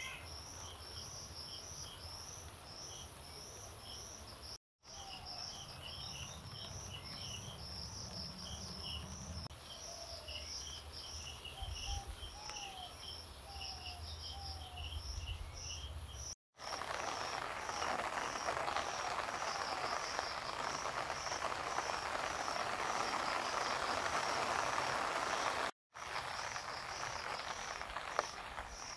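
Outdoor insect chorus: an even, repeating high chirping over a steady high-pitched whine, with a row of lower pulses and a few short gliding calls in the first half. For about nine seconds past the middle a louder even hiss lies over it. The sound cuts out for a moment three times.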